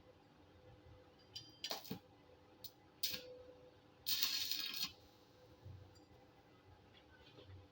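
A few light metallic clinks as steel parts are handled, then a short crackling hiss of under a second about four seconds in: a brief arc-welding tack on the steel strip fins.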